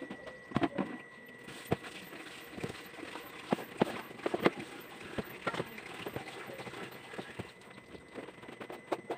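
Scattered knocks and soft thuds of binangkal dough being handled on a wooden countertop as it is pressed, rolled and cut into pieces.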